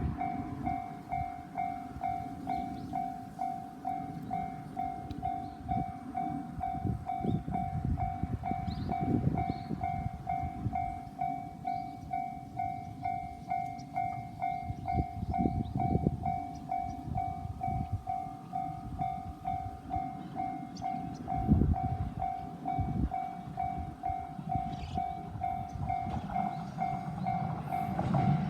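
Japanese railway level-crossing warning bell dinging in a steady, even repeat, signalling that a train is approaching, over an uneven low rumble. The rumble swells sharply right at the end as the train arrives.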